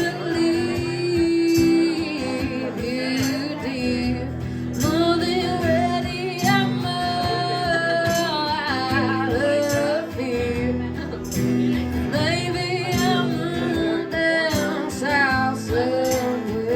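Live band music: a woman singing over guitar accompaniment.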